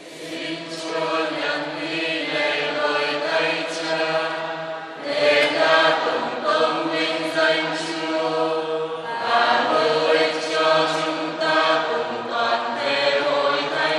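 A congregation chanting the sung response to the priest's invitation to pray at Mass, many voices together on held liturgical tones, in phrases with short breaks about five and nine seconds in.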